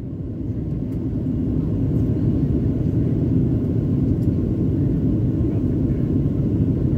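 Cabin noise inside a Boeing 737-900 on approach with flaps extended: a steady low rumble of airflow and engines. It rises in level over the first second or so, then holds steady.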